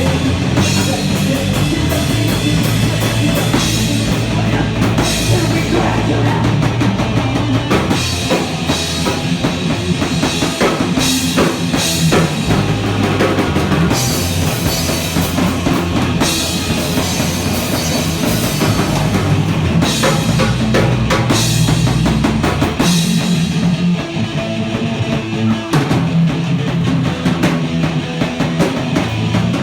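Rock band playing live, with a full drum kit prominent over the band.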